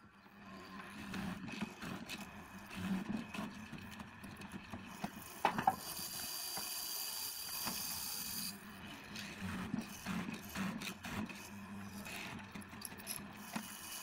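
Bench mortising machine running, its chisel worked down into a wooden board with scraping and scattered knocks, and a sharper knock about five and a half seconds in.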